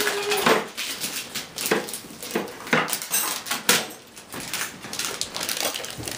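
Christmas wrapping paper being torn off a present in a run of quick rips, with a small child's short, held vocal sound at the very start.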